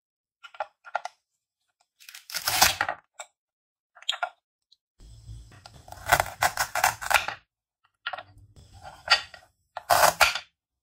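Velcro-joined plastic toy fruit and vegetables being pulled and cut apart with a plastic toy knife: the velcro rips in three tearing bursts, a short one about two seconds in and longer ones in the middle and near the end, between light clicks and taps of plastic pieces on a wooden cutting board.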